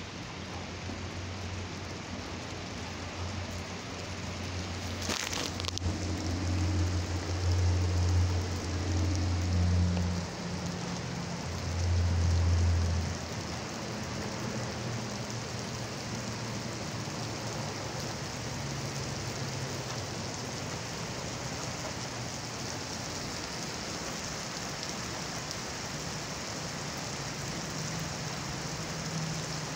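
Heavy rain pouring onto wet asphalt pavement, a steady hiss. A deep low rumble swells from about four seconds in and fades by about thirteen seconds, with a single sharp click near five seconds.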